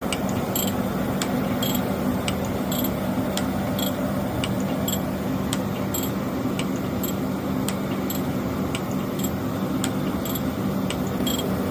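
Surface grinder running: a steady machine hum with a light, regular tick about twice a second.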